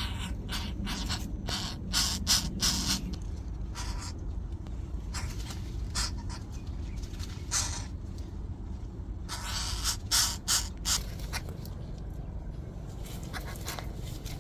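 Repeated short bursts of rustling and scraping over a steady low rumble.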